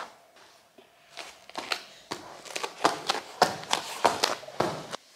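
Irregular taps and knocks, several a second, starting about a second in: a toddler's hands patting and bumping on the floor close to the microphone.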